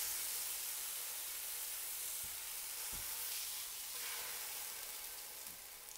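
A tortilla dipped in red enchilada sauce sizzles in a hot frying pan. The sizzle is loudest at first and slowly dies down.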